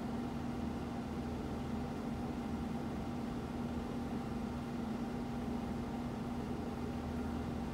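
A steady low hum over a faint hiss, with no chime strikes or ticks standing out.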